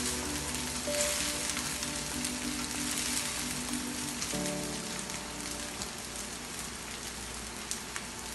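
Basmati rice frying in hot ghee in a nonstick pan, sizzling steadily as it is gently turned over with a silicone spatula.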